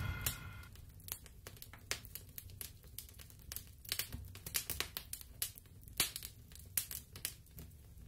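Faint, scattered clicks and crackles at an irregular pace, with the ringing tones of a music sting dying away in the first second.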